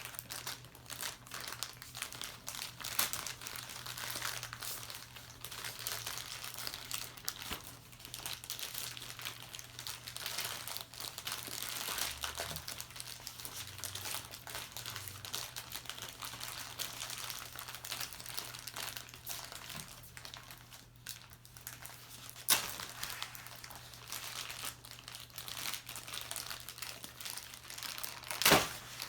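Plastic toy packaging crinkling and rustling as it is handled and unwrapped, in dense irregular crackles, with some tearing and two louder sharp crackles late on.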